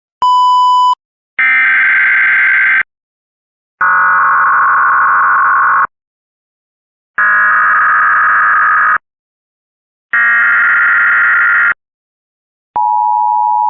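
Emergency Alert System tones: a short beep, then four harsh, buzzy data bursts of about two seconds each with short silences between them, like an EAS header, then the steady two-tone attention signal starting about a second before the end.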